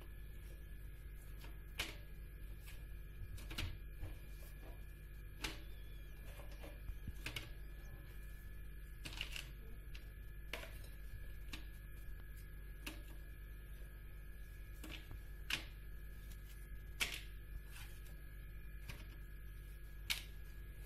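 Apple slices being picked off a plate and laid into a paper-lined springform pan: scattered light taps and clicks at an uneven pace, over a steady background hum.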